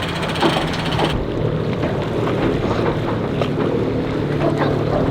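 Boat's outboard motor running steadily at the ramp, with wind rushing across the microphone; the high hiss drops away about a second in.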